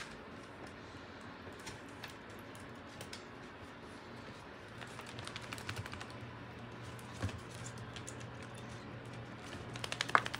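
American Staffordshire terrier puppies' claws clicking and skittering on a hardwood floor in quick bursts as they wrestle, with a single knock about seven seconds in. Near the end a brief puppy yip, the loudest sound, comes amid a flurry of claw clicks.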